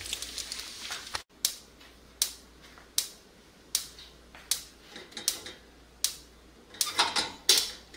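Frying bacon sizzling in a cast iron skillet for about a second, then, after a cut, a run of sharp separate clicks and taps at roughly one a second, coming closer together and louder near the end.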